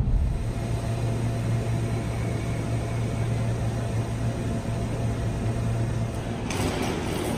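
Steady low hum of VIA Rail's 'Canadian' standing at a station platform, its stainless-steel passenger cars' machinery running. About six and a half seconds in, a hiss starts over the hum.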